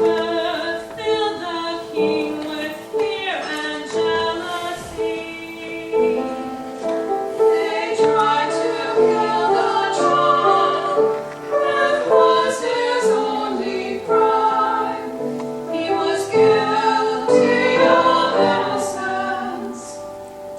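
A choir singing with accompaniment, a slow sustained piece from a church cantata.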